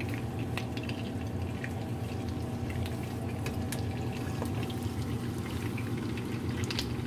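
Breaded tuna cakes frying in shallow hot oil in a nonstick pan: a steady sizzle, dotted all through with small sharp crackles and pops of the grease, over a steady low hum.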